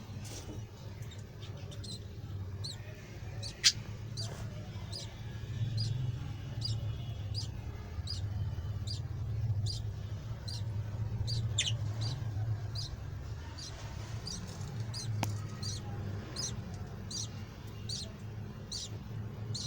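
A colony of small Australian parrots chirping, with short high calls repeating about twice a second, over a steady low hum. A single sharp click sounds a little under four seconds in.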